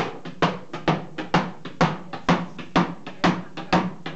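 Hammer blows on a cooper's iron hoop driver set against the metal hoop of a wooden wine barrel, about two sharp strikes a second in a steady rhythm with lighter knocks between. The hoop is being driven to bring the staves to the same height.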